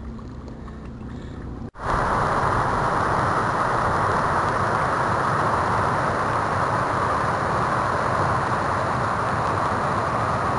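Water rushing steadily over a low river weir, coming in suddenly about two seconds in after a faint, quiet start.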